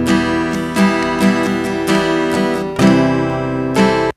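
Layered acoustic guitar tracks play back together as a multitrack mix, strumming and picking, with a plucked note repeating about twice a second; the playback stops abruptly at the end. This is the mix with an EQ applied to every track to cut hum and hiss, and it is starting to sound cleaner.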